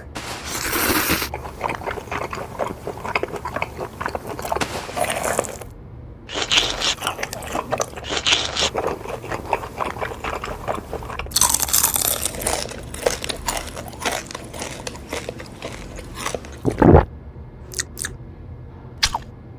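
Crispy bacon being bitten and chewed close to the microphone: crunching bites in bursts with short pauses between. A single thud near the end.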